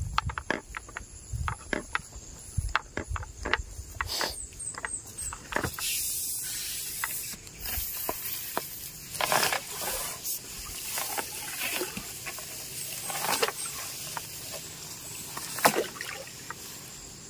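Water splashing and sloshing in shallow water, several times, among many scattered small clicks and taps.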